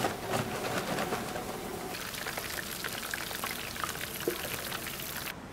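Chicken deep-frying in hot oil: a dense crackling sizzle of many small pops. It shifts abruptly about two seconds in and again near the end.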